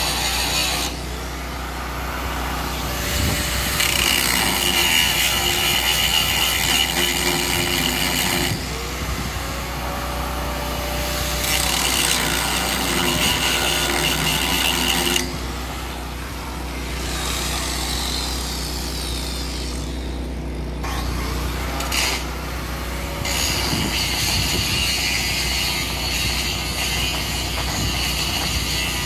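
Stick-welding arc crackling and hissing on a steel tank in several stretches of a few seconds each, stopping between them, with an engine running steadily underneath.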